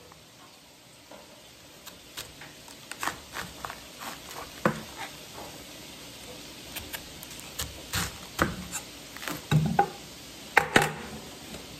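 Knife cutting the core out of a head of cabbage: irregular crunches and sharp knocks, starting about two seconds in and growing louder and more frequent toward the end.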